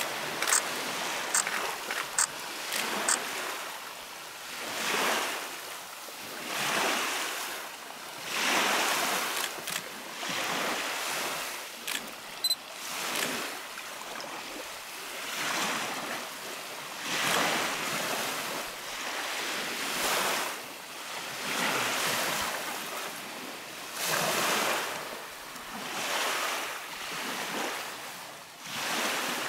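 Small lake waves washing onto a gravel shore, surging and ebbing every second or two. A few sharp clicks come in the first few seconds.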